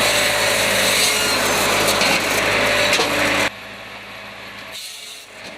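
Wood-processing machine cutting into wood with a loud, rasping sawing noise. About three and a half seconds in, the noise drops to a much quieter steady machine hum.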